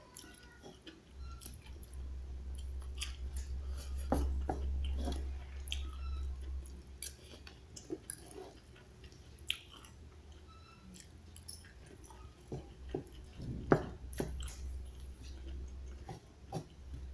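A person chewing and eating a meal of rice, with scattered clicks and scrapes of a metal spoon and fork working the rice on its paper wrapping. A low rumble comes and goes under it.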